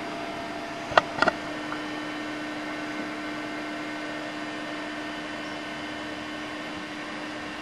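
One sharp click about a second in, then two quick clicks close together, over a steady electrical hum.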